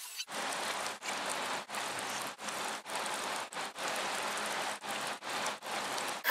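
Rain falling steadily as an even hiss. It starts abruptly just after the beginning and drops out for an instant several times.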